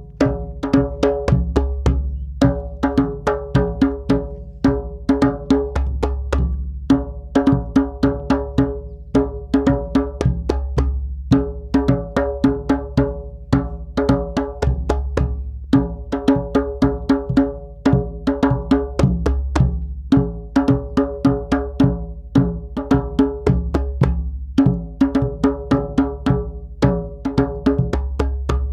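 Hand drum struck in a steady syllable rhythm, about three ringing strokes a second, in groups that repeat the pattern of a spoken mantra phrase.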